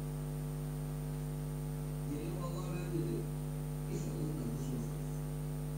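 Steady electrical mains hum with a ladder of overtones, with faint indistinct wavering sounds twice, about two and four seconds in.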